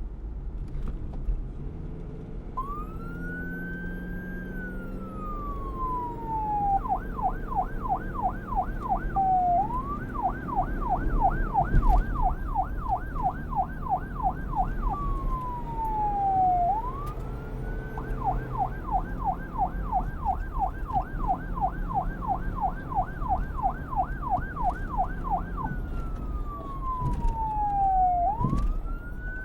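Electronic police siren, starting about two and a half seconds in and switching between a slow wail that rises and falls and a fast yelp of quick up-and-down sweeps, over a steady low rumble. It goes wail, yelp, wail, yelp, wail.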